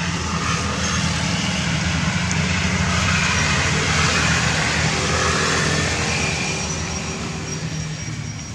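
Motor vehicle passing: a steady engine and road rumble that swells to its loudest about four seconds in, then fades.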